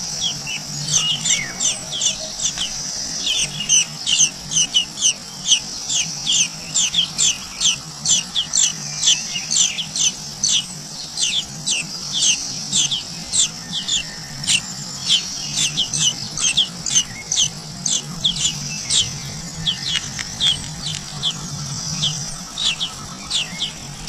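Nestling songbirds begging to be fed, a quick run of short, high chirps, each falling in pitch, about three a second with a few brief lulls. A faint low hum lies underneath.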